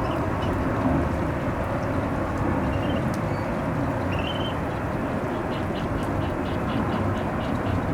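Wind gusting across the microphone with heavy rain, a steady low rushing noise. A faint quick ticking, about four a second, comes in near the end.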